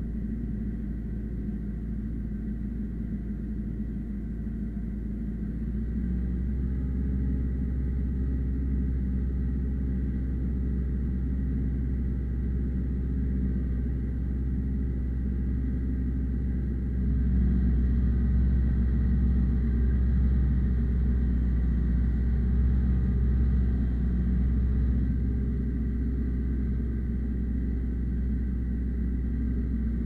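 Ursus C-355 tractor's four-cylinder diesel running steadily under heavy load while pulling a two-furrow plough through hard ground. The low rumble grows louder about six seconds in and again around seventeen seconds, easing off near twenty-five seconds.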